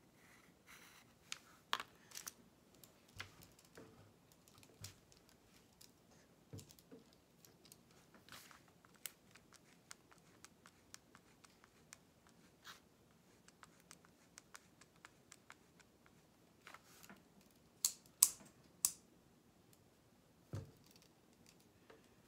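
Faint scratching and tapping of a pencil and pen drawing on paper, with scattered small clicks. Near the end come three sharp clicks close together, then a single dull knock.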